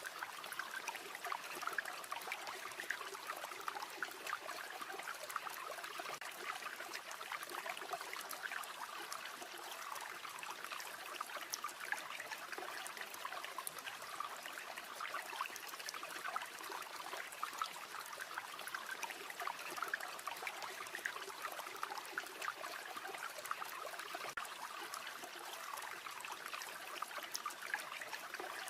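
River water flowing and babbling steadily over stones.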